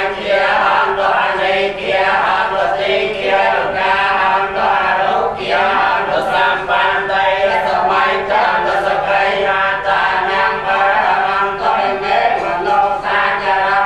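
Group of Theravada Buddhist monks chanting together in unison: many male voices in one continuous, steady recitation.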